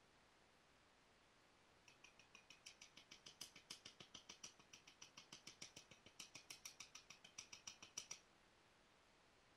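A quick, even run of light clicks of a knapping tool against a piece of Rainy Buttes stone, about seven a second. It starts about two seconds in and stops about eight seconds in.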